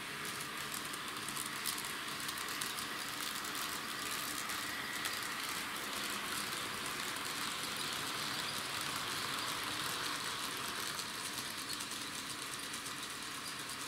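TT-scale model diesel locomotive running on layout track: a steady whir from its small electric motor and running gear, with light clicking of the wheels over rail joints and points.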